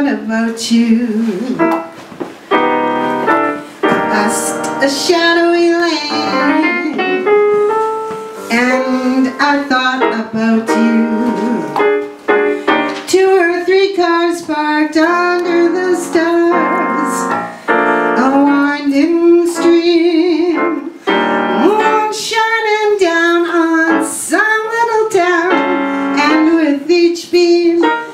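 A woman singing a slow song through a microphone with vibrato, accompanied by piano.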